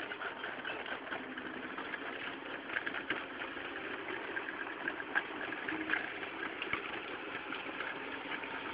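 Mini excavator engine running steadily, with scattered short sharp knocks.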